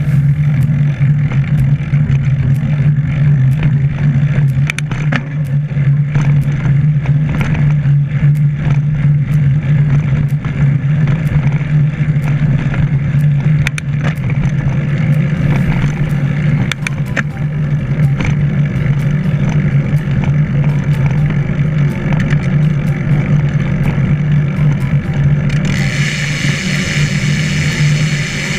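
Wind buffeting the camera microphone with road and tyre noise while riding a mountain bike: a steady low rumble with scattered clicks. A higher hiss joins in near the end.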